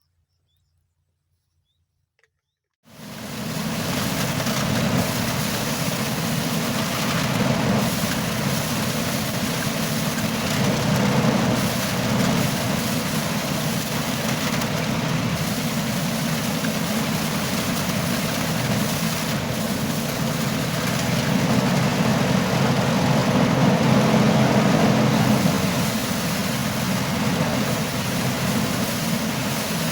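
Engine-driven rice threshing machine running steadily: a loud, constant mechanical din. It cuts in abruptly about three seconds in, after silence.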